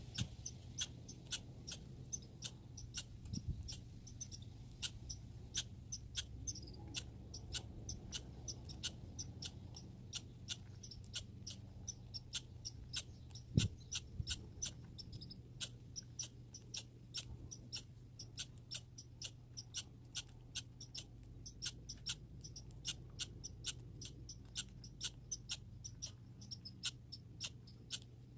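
A squirrel gnawing: sharp, high, crisp clicks, about two to three a second at an uneven pace, over a faint steady low hum. One louder knock comes about halfway.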